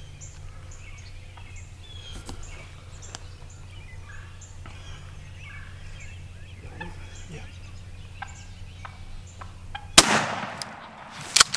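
Wild turkeys calling with many short notes as the flock walks close by, then a single very loud gunshot about ten seconds in, ringing away, followed by two quick sharp knocks near the end.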